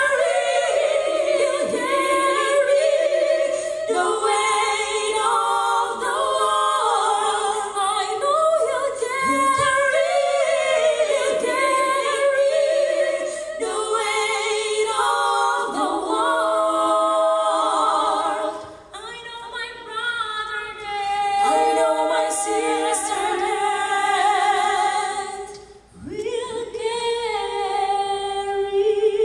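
Mixed choir of men and women singing, the front-row women on handheld microphones. The singing breaks off briefly between phrases about 19 and 26 seconds in.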